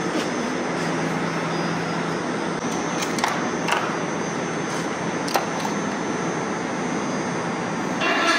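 Steady mechanical running noise with a low hum for about the first two seconds, and a few sharp clicks or taps between about three and five and a half seconds in.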